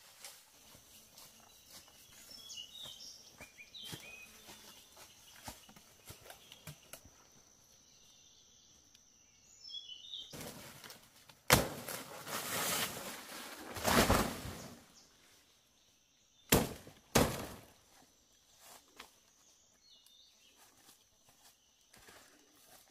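Footsteps through grassy undergrowth with a few bird chirps, then a machete chopping into a wild banana plant's soft, fibrous trunk: one sharp strike about halfway, a few seconds of loud leafy rustling, and two more quick strikes.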